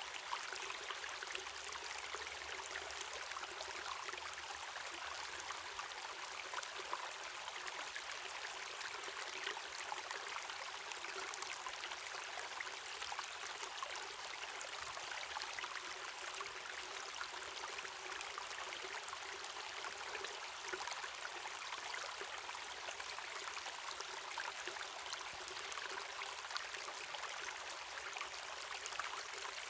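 River waterfall: water running and splashing steadily, with little deep rumble.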